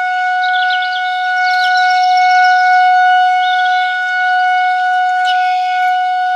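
Synthesized imitation of a Federal Signal 2001-130 outdoor warning siren sounding one steady, loud tone, with birds chirping now and then behind it.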